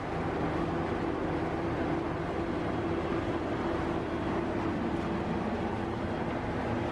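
A steady hum with a constant low tone over an even background rush, with no distinct knocks or other events.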